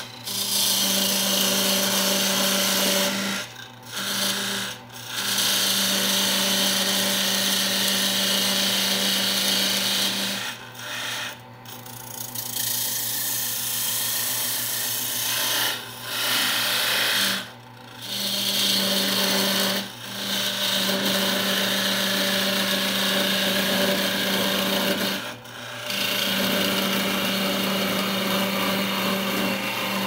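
Small wood lathe running while a hand-held turning tool cuts into the spinning wood blank for a turned box, a steady hissing scrape over the motor's hum. The cutting noise stops briefly about seven times as the tool is lifted off the wood, then starts again.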